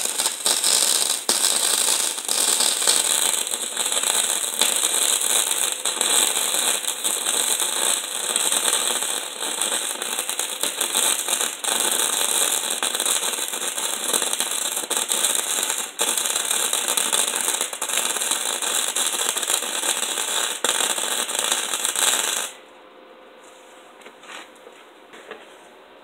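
Wire-feed (MIG) welder arc crackling steadily while welding up the open, ground-down spots on a steel tractor shift lever, then cutting off abruptly with a few seconds left as the gun is lifted away.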